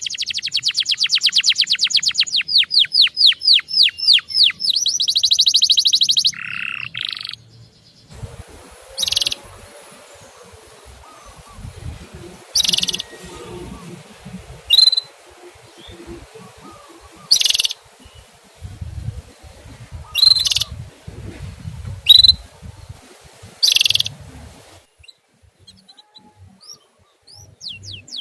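Male canary song: a fast rolling trill of rapidly repeated notes. Then, over a faint background hiss, repeated short sharp 'cuit' call notes spaced every two to three seconds.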